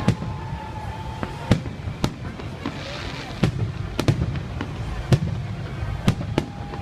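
Fireworks salute going off: an uneven series of sharp bangs, about nine in all, over a steady low rumble, with a short burst of crackling about three seconds in.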